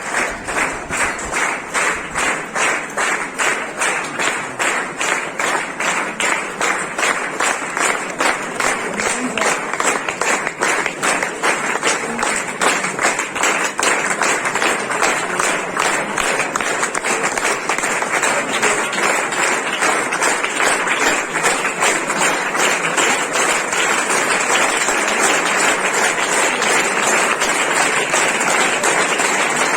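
A crowd clapping in unison, about two claps a second, then breaking into continuous applause that grows a little louder about halfway through.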